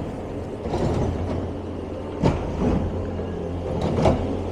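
Small snow-clearing machine's engine running steadily while it crushes packed snow and ice on the street, with two sharp scraping knocks. The whole is very noisy.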